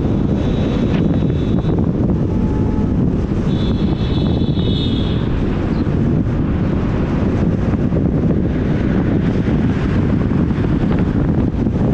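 Steady low rumble of wind buffeting the microphone, with two brief faint high-pitched tones near the start and about four seconds in.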